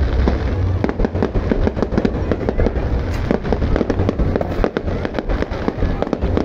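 Aerial fireworks display going off without pause: many rapid, overlapping bangs and crackles over a heavy low rumble.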